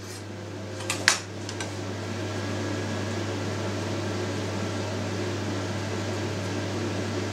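Steady machine hum with a low electrical hum beneath it, swelling slightly after the first second or two. A couple of light knocks about a second in.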